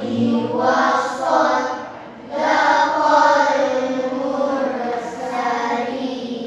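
A group of voices, children among them, chanting Qur'anic recitation together in long, drawn-out melodic phrases, with a short pause for breath about two seconds in.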